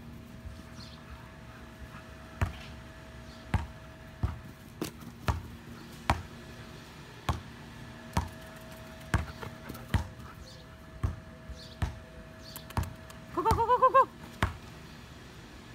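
A basketball bounced on a concrete slab, a string of sharp irregular thuds roughly one every second. Near the end a brief wavering cry is the loudest sound.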